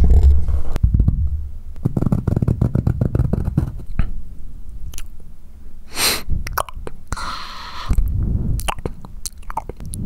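Close-miked ASMR mouth sounds made right against a Blue Snowball Ice USB microphone and heard raw: many small wet clicks and smacks over a low rumble. At the start the low rumble is strong as the mic is handled. About six seconds in there is a sharp breathy burst, then a short hiss.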